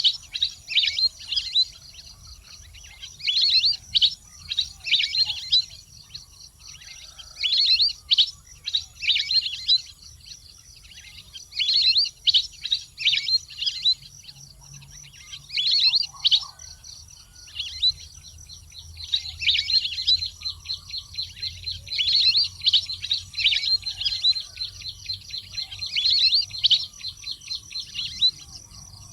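A water bird giving bouts of rapid, high-pitched chattering calls, each burst a second or two long and repeating every few seconds, busiest in the second half.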